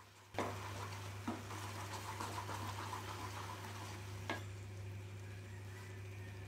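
Wooden spatula stirring and scraping thick banana halwa (mashed banana cooked down with jaggery and ghee) in a non-stick pan, the mixture sizzling as it cooks. It starts suddenly with a knock of the spatula on the pan, with more knocks about a second in and near four seconds, and a steady low hum underneath.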